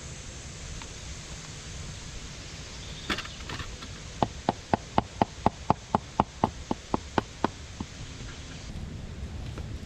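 A quick, even run of about fifteen knocks on wood, roughly four a second, over a steady noisy hiss of wind or snow.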